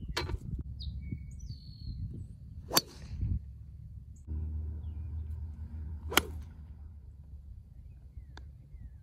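Golf club striking a golf ball three times: sharp clicks at the start, about three seconds in (the loudest) and about six seconds in. Birds chirp faintly in between.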